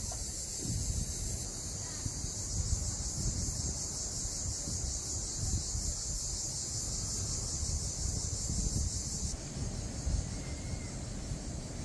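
Cicadas buzzing in a steady high-pitched chorus, with wind rumbling on the microphone. The buzz turns fainter about nine seconds in.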